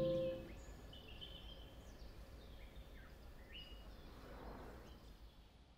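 A strummed acoustic guitar chord rings out and fades within the first half second. Then comes faint ambience: a low rumble with a few short bird chirps about a second apart.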